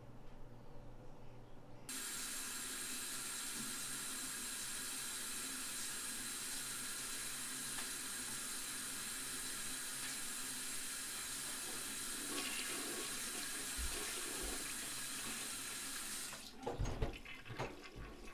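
Water running steadily from a bathroom sink tap. It starts abruptly about two seconds in and stops near the end, followed by a few knocks.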